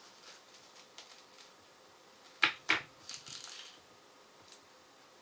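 Scooping out the middle of a red onion: light scraping and clicks of the tool in the onion flesh. About halfway through come two sharp knocks in quick succession, followed by a short scratchy scrape.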